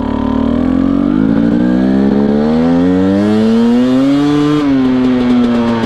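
Husqvarna TE250i two-stroke fuel-injected engine under gradually opened throttle, its revs climbing slowly for about four and a half seconds, then dropping sharply and holding steady at a lower pitch.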